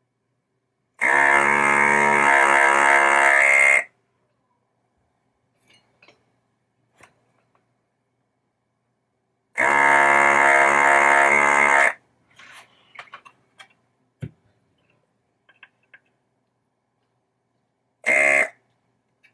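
Electric desoldering tool's vacuum pump buzzing in three bursts, two of a few seconds each and a short one near the end, as solder is sucked from a capacitor's leads on the power supply board; light clicks and taps of handling come between the bursts.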